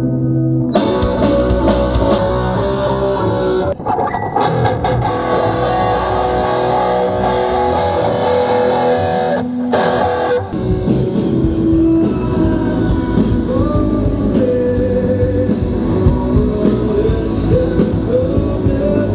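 Rock music with guitars and a drum kit. The full band comes in about a second in, and a fuller, heavier section starts about ten seconds in.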